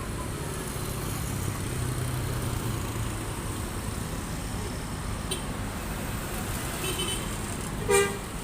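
A bus engine running steadily under road traffic noise, then one short, loud horn blast near the end.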